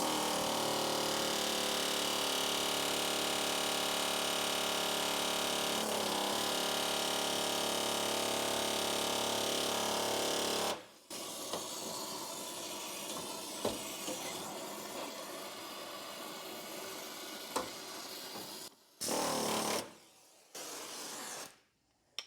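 Pneumatic air chisel hammering in rapid, steady strokes on a rusted bolt heated red hot, to drive it out. One long run of about eleven seconds cuts off abruptly, then the hammering resumes less evenly until near the end, with two short bursts at the close.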